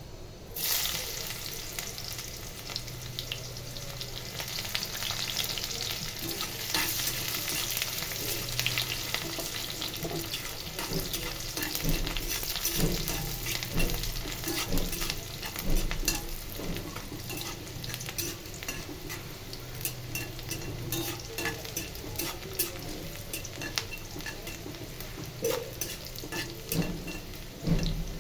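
Food sizzling in a hot frying pan, the sizzle starting suddenly about half a second in, while a spatula stirs it with frequent scraping and tapping against the pan.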